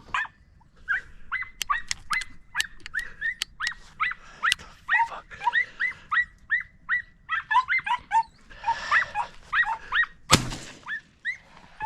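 Hunting dogs yelping on a rabbit chase, short high yelps coming a few a second. Near the end a single loud bang, a gunshot at the rabbit.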